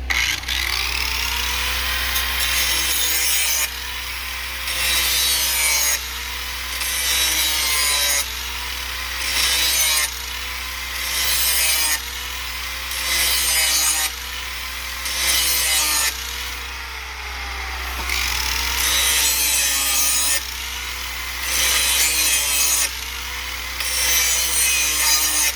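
Hand-held electric grinder sharpening the cutting edge of a steel lawnmower blade. The grinder runs throughout as the wheel is drawn along the edge in about ten passes, each a harsh grinding burst of a second or two. The motor's whine sags with each pass under load.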